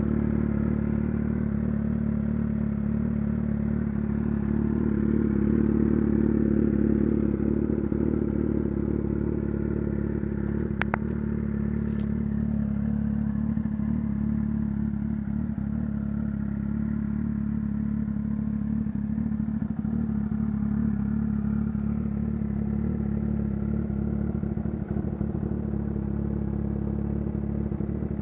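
Kawasaki Z800's inline-four engine running through an aftermarket exhaust, holding a steady low speed with a slight swell a few seconds in. A sharp click sounds about eleven seconds in.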